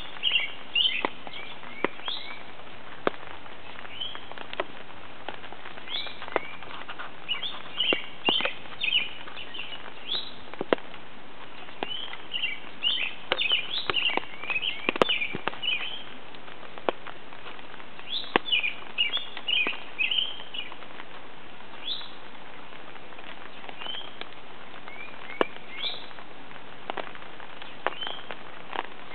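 Songbirds singing and chirping in quick clustered phrases, with raindrops ticking one by one on an umbrella over a steady patter of rain.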